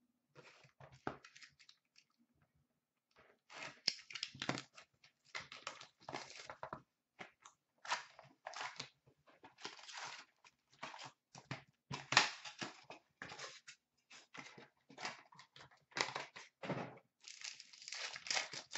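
Upper Deck Ice hockey card packs being torn open and the wrappers crinkled, with cards handled: a run of short ripping and rustling sounds, some sharper and louder than others.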